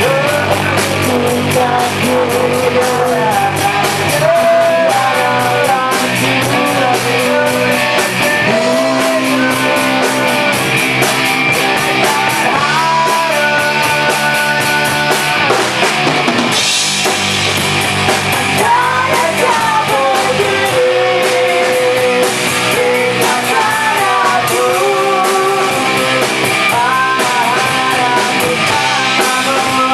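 A rock band playing live: a man singing while playing bass guitar, over drums with busy cymbals and guitar.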